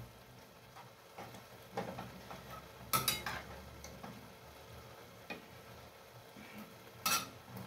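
A cooking utensil stirring a stew of tomatoes and potatoes in a frying pan on a gas stove, scraping and clinking against the pan a few times, the loudest clinks about three seconds in and again near the end, with a faint sizzle underneath.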